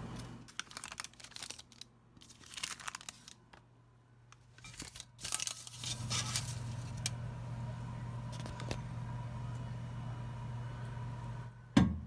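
Paper towels rustling and crinkling as the flower is handled. Then, about six seconds in, a microwave oven starts running with a steady hum, ended near the end by a sharp clunk.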